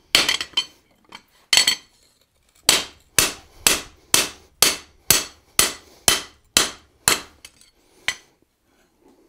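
Hand hammer striking a red-hot Pulaski axe head on a steel anvil as it is forged. A few irregular blows come first, then a steady run of about ten blows at about two a second, each with a short metallic ring, and a few lighter taps near the end.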